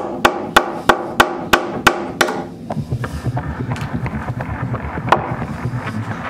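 Hammer driving finishing nails into a white oak door frame: quick ringing strikes about three a second for the first two seconds, then a single strike about five seconds in.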